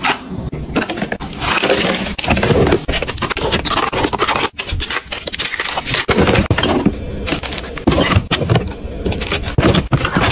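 White plastic storage drawers and pull-out boxes being slid in and out, with scraping and sharp clicks. Plastic-wrapped packets of wipes and tissues rustle and knock as they are handled.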